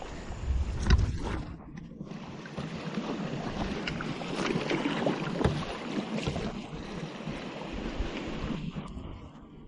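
Fast river water rushing and splashing around a canoe, with wind buffeting the microphone. There is a loud knock about a second in, and the sound briefly goes muffled soon after and again near the end.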